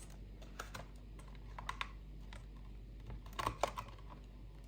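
Light, scattered clicks and taps of a Blu-ray box set's packaging being handled as a part is pulled out, with a quick cluster of clicks about three and a half seconds in.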